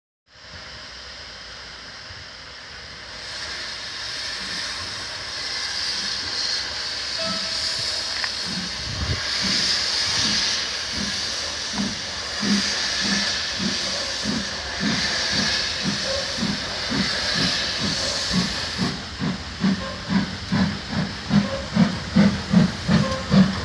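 Steam locomotive pulling away from a standstill: a steady hiss of steam, then exhaust chuffs that start slowly and quicken to about two a second, growing louder as the train gathers speed.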